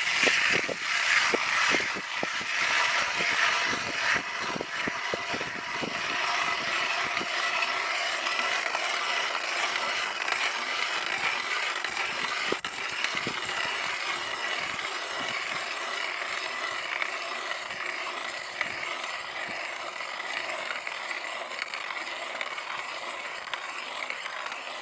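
Nils U.S.A. hand ice auger cranked by hand, its blades shaving steadily through 17-inch-thick ice with a continuous grinding scrape, a little louder in the first few seconds.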